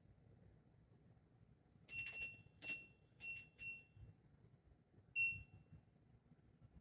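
A quick run of short, high electronic beeps, each with a click, about two seconds in, then one more beep near the end, like button presses on a beeping control panel.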